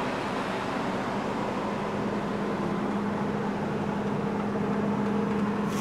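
Steady hum of a 2007 Ford Focus idling, with a constant low drone from the engine and fan.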